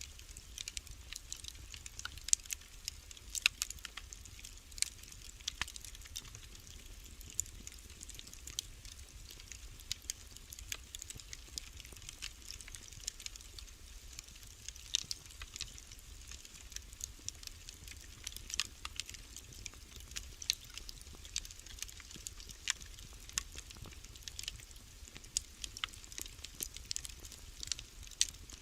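Wood fire crackling in a fireplace, with irregular sharp pops and snaps over a low steady rumble.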